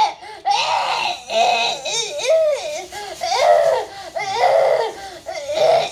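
A person wailing and sobbing in loud, high-pitched, wavering cries, about seven of them one after another with short breaths between.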